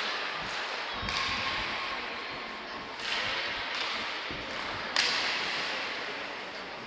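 Ice hockey skates scraping and carving across the ice, with stick and puck clacks. A sharp hit about five seconds in trails off through the rink.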